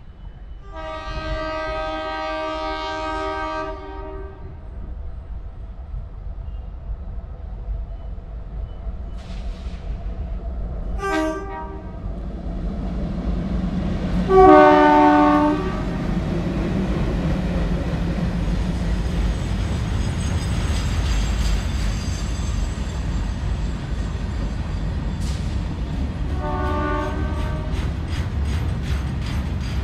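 Twin-tone ALCo horn of a WDM 3D diesel locomotive sounding four times: a long blast near the start, a short toot partway through, the loudest blast about halfway, and a short one near the end. From about the middle, the rumble and wheel clatter of the passing freight train of empty wagons build up and hold steady under the horns.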